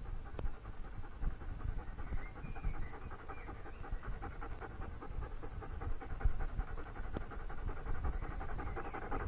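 A German Shepherd Dog panting in quick, even breaths.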